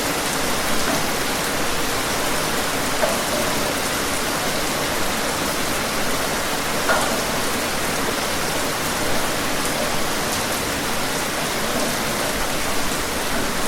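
Steady rain falling, an even hiss with a few louder drops standing out now and then.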